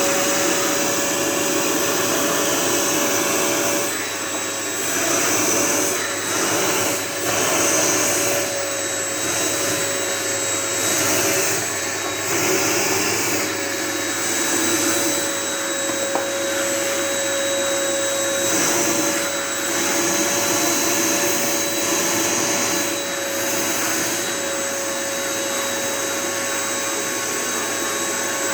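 Vacuum cleaner running continuously with a steady motor whine, its airflow rising and falling every few seconds as the nozzle is drawn over a cat's fur.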